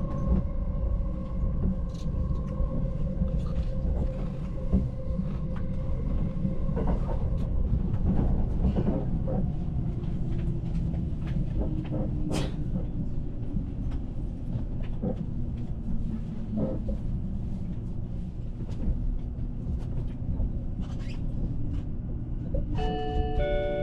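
Running noise of the E353-series Azusa limited express heard inside the carriage: a steady low rumble with scattered clicks of the wheels over the rails, and a steady whine that fades out about seven seconds in. Near the end the onboard announcement chime starts playing a short stepped melody.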